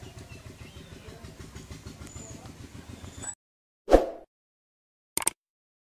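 Low, steady outdoor rumble that cuts off about three seconds in. Then the sound effects of a subscribe-button animation play: a loud short pop, and a quick double click about a second later.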